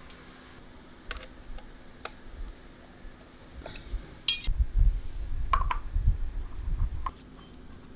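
Light metallic clinks and taps as machined aluminium turntable feet are handled and screwed onto the plinth, with a sharp clink about four seconds in. Then about three seconds of low thuds and rumble as the heavy plinth is shifted and tipped onto its edge, with a few more clinks.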